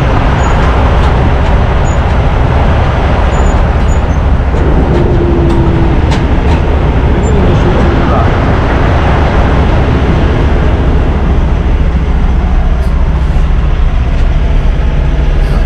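A car ferry's engines running with a loud, steady low rumble, heard from the vehicle deck.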